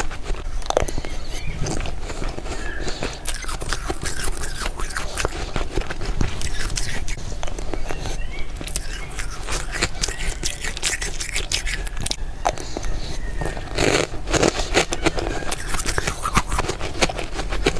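Close-miked fast bites and chewing of soft freezer frost: dense, crackly crunching with no pause, louder around fourteen seconds in.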